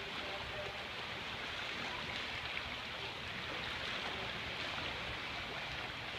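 Swimmers splashing through the water of a pool, a steady wash of churning water noise.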